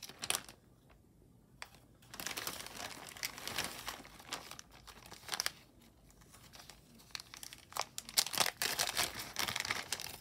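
Thin clear plastic bag crinkling as it is handled and pulled open by hand. The rustling comes in two spells, the first starting about two seconds in and the second near the end, with a short lull between.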